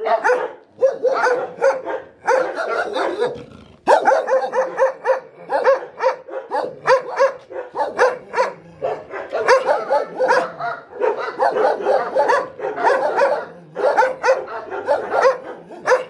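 Dogs barking, among them a German shepherd-type dog at its kennel gate. The barks come fast and overlap, several a second, with hardly a pause.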